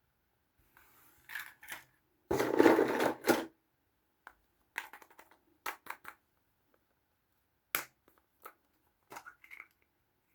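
Small plastic toy packaging being handled: a loud crackling crush just over two seconds in, then scattered short crinkles and clicks.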